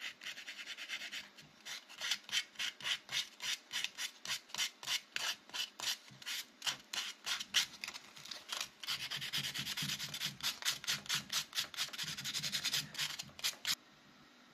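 Hand-sanding a carved wooden knife handle with a folded piece of sandpaper: quick back-and-forth rubbing strokes, about three a second, that stop shortly before the end.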